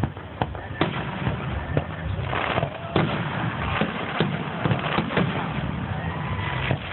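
Aerial fireworks shells bursting overhead: an irregular run of sharp bangs and pops over a steady background rumble and hiss.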